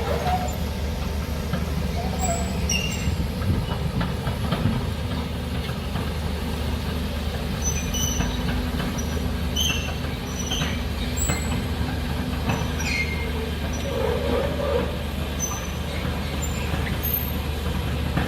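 Heavy machinery running at a steady low rumble, with short high-pitched metallic squeaks scattered through it.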